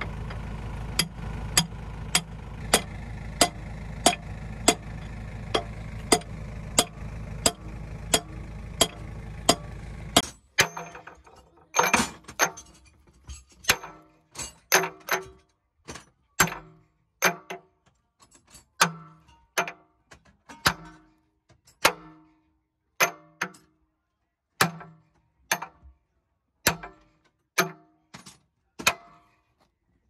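Hammer blows on the steel pins of a JCB 3DX backhoe's bucket linkage, each with a short metallic ring, at about one and a half blows a second over the backhoe's diesel engine idling. About ten seconds in, the engine sound drops out and the blows go on, slower and uneven.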